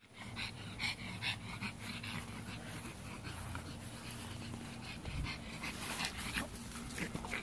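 Boston Terrier panting in short, irregular breaths as she noses after a ball across grass.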